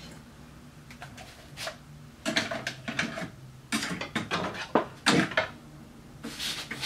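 Hard plastic knocking and clattering as a DJI Phantom 1 quadcopter is handled, lifted and set down on a desk: several short bursts of knocks, the loudest in the middle.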